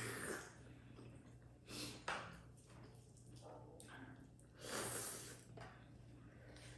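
A person breathing heavily through the nose while eating, with a loud nasal breath at the start and again about two and five seconds in, over a faint steady hum.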